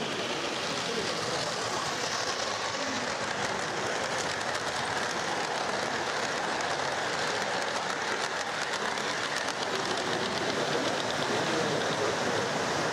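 O gauge model train running past on three-rail track: steady rumble of the wheels and motor, with a run of rapid wheel clicks over the rail joints as it passes around the middle.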